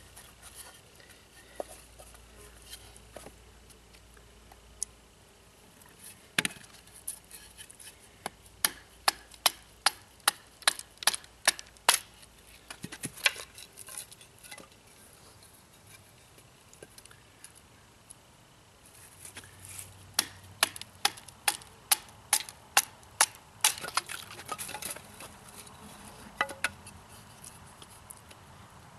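Wood being split down into smaller pieces with a bushcraft knife: a few scattered sharp knocks, then two runs of quick knocks about two or three a second, around a third of the way in and again about two-thirds through.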